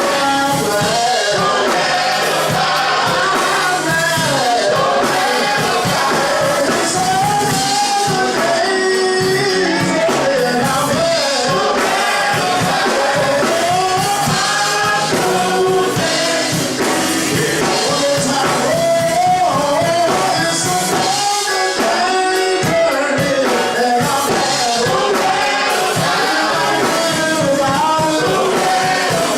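Choir singing gospel music with instrumental accompaniment, one sustained song throughout.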